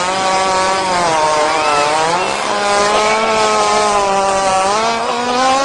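A hippopotamus's long, unbroken fart: a loud, raspy, pitched buzz that wobbles slightly in pitch and edges a little higher near the end.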